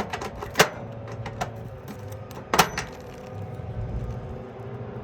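Hand tools working nails out from under asphalt roof shingles: a few sharp clicks and knocks, two of them louder, about half a second and two and a half seconds in, over a steady low hum.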